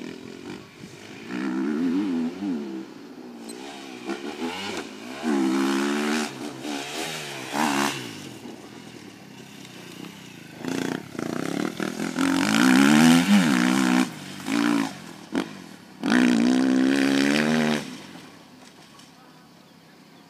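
Motocross motorcycle engines revving hard in repeated bursts, their pitch climbing and dropping as the throttle is opened and shut. The sound dies away near the end.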